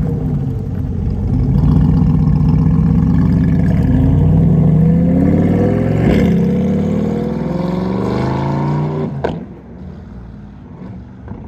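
C8 Corvette V8 through an aftermarket valved exhaust with sport catalytic converters: a deep rumble as the car rolls out, then the revs rise as it accelerates away. About nine seconds in there is a sharp crack and the sound drops sharply and stays low, the car now far off.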